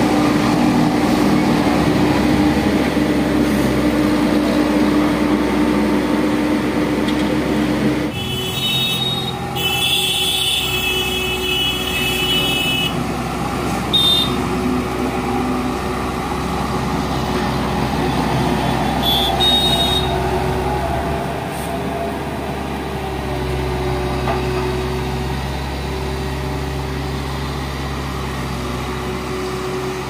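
Volvo double-drum asphalt roller's diesel engine running steadily as it works over fresh asphalt, its note changing about eight seconds in. A high-pitched tone sounds for a few seconds from about eight seconds in, with shorter ones twice later.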